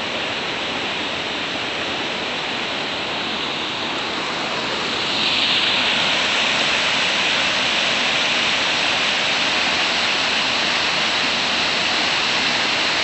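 Waterfall cascading down a rock face: a steady rush of water that grows louder about five seconds in.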